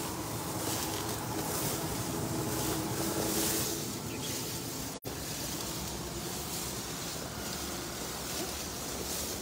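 Steady wind rumble on the phone microphone mixed with tall grass swishing as people wade through it, with a brief dropout in the audio about five seconds in.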